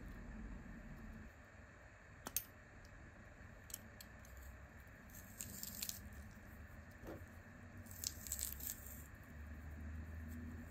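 Handheld metal garlic press squeezing a garlic clove: a sharp metallic click about two seconds in, then two short spells of quick clicks and crackles as the clove is pressed through.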